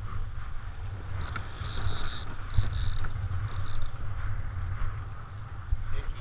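Wind buffeting the microphone and water rushing along the hull of a small sailboat under way. A thin high whine comes and goes for a few seconds, starting about a second in.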